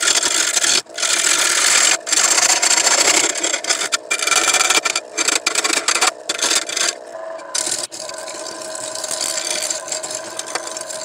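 A turning tool cutting a spinning green dogwood crotch bowl blank on a wood lathe: a loud, rough scraping hiss broken by short gaps as the tool is lifted and set back on the wood. From about seven seconds in it is quieter and steadier, with the lathe's hum showing through.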